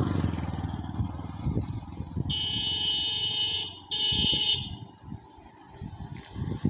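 A vehicle horn honks twice: a steady honk of about a second and a half, then a shorter one right after it, over a low rumble.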